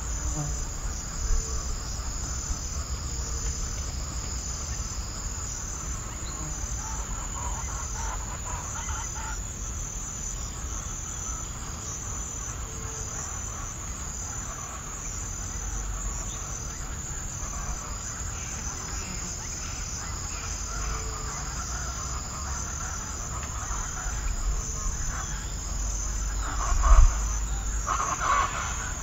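Steady chorus of crickets and other insects, with a high pulsing trill repeating at an even rate. A few louder bird calls come in near the end.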